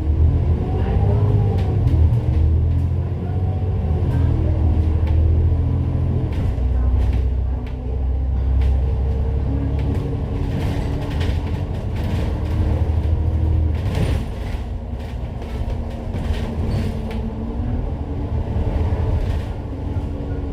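Citybus double-decker running on the road, heard from on board: a heavy low engine and road rumble, with the engine note rising and falling as it accelerates and shifts. Scattered short rattles and knocks from the body.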